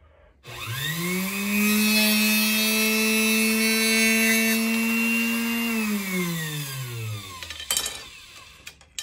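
Electric arrow cut-off saw starting up with a quickly rising whine. Its spinning cutoff wheel runs steadily, with a hissing grind as it cuts through a carbon arrow shaft. It is then switched off and winds down with a falling pitch, and a few sharp clicks come near the end.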